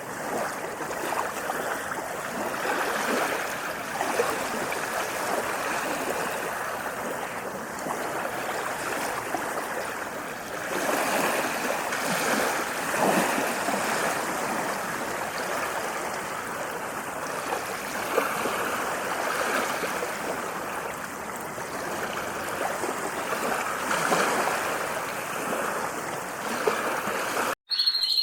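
Running water: a steady rush of flowing water with gentle surges, cut off abruptly near the end.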